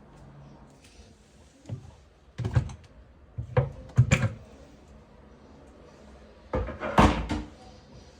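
Dishwasher parts being handled, giving a series of separate clunks and knocks, with the loudest cluster about seven seconds in.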